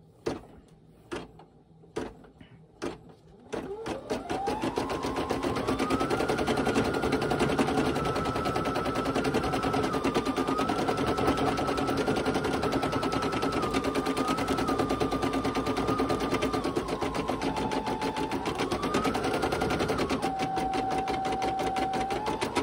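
Brother PE800 embroidery machine stitching. After a few separate clicks, its motor starts about three seconds in with a whine that rises as it speeds up, over a rapid, steady needle clatter. The whine shifts up and down as the stitching speed changes, and drops lower for a while near the end.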